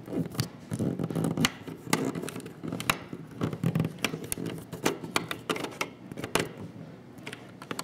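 Small screwdriver tightening a wire terminal screw on a Filtrete thermostat's terminal block, making an irregular run of small clicks and scrapes as the tip turns in the screw head.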